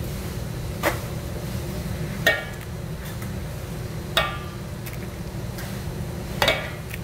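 Sharp knocks against stainless-steel kitchenware, four in all about two seconds apart, each with a short metallic ring, over a steady low hum.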